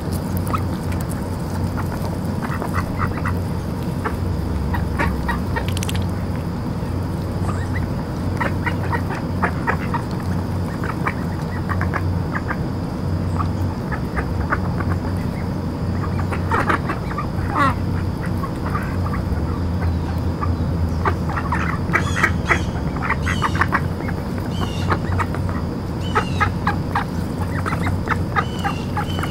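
A flock of mallard ducks feeding close by with many short, soft quacks and chatter, coming thicker near the end, with a few brief higher peeps.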